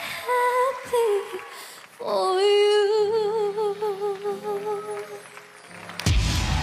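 A young girl's solo singing voice: short phrases, then long wordless held notes with vibrato over soft sustained keyboard-like chords, as the song closes. Near the end a loud wash of audience applause breaks out.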